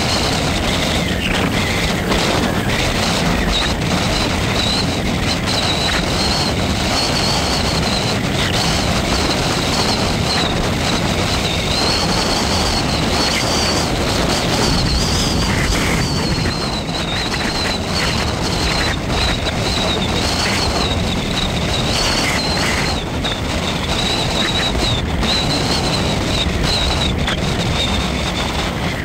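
Steady road and wind noise from a moving vehicle, with wind buffeting the microphone, and a thin high whine wavering slightly in pitch throughout.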